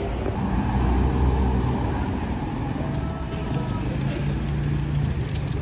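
Steady outdoor street noise: a low rumble of passing traffic and engines with faint voices in the background, and a few light clicks near the end.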